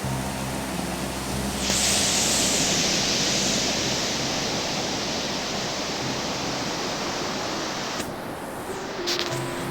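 Sea surf: a wave breaks about two seconds in, and its hissing wash slowly dies away.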